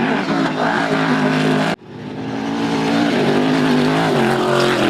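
Off-road racing truck's engine revving hard as it drives across dirt. About two seconds in the sound cuts out abruptly for a moment, then the engine note builds back up and holds steady.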